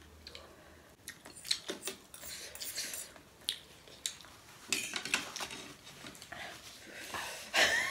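Metal forks and spoons clinking and scraping against ceramic plates of noodles while eating, in scattered light clicks.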